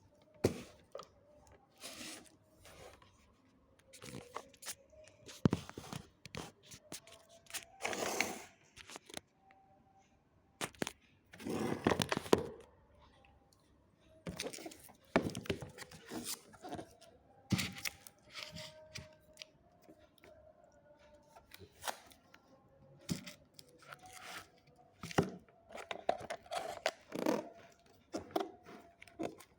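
Toy packaging being opened by hand: irregular tearing, crunching and scraping of cardboard and plastic, with scattered clicks. The longest tearing or crunching bursts last about a second, near the quarter mark and again a little before the halfway point.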